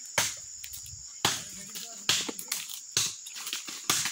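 Machete chopping by hand into a thin tree trunk: about five sharp chops, roughly one a second. Insects buzz steadily at a high pitch behind them.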